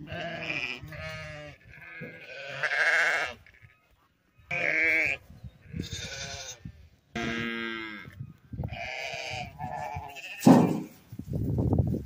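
A flock of sheep bleating at feeding time, one call after another with short gaps, as they crowd in for hay.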